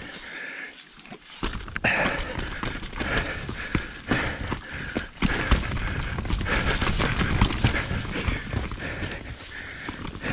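Mountain bike descending a dirt forest trail at speed: knobby tyres rumbling over dirt and roots, with the bike rattling and knocking over bumps. The rumble drops away for about a second near the start, then comes back with a sharp knock.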